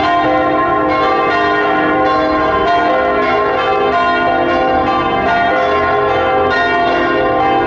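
Several church bells pealing together. Strikes follow one another about every half second, and each bell's tone rings on under the next strike.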